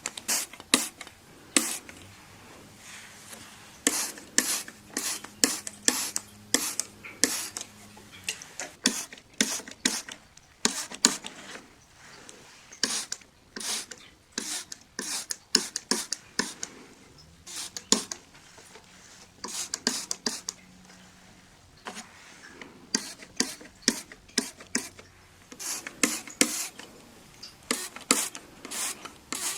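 Window glass being wiped clean, a run of short, sharp rubbing strokes about one or two a second, coming in clusters with short pauses.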